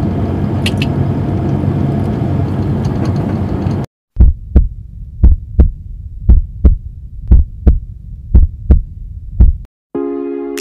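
Heartbeat sound effect: about six double thumps, one pair a second, starting about four seconds in. Before it, steady car cabin rumble cuts off abruptly.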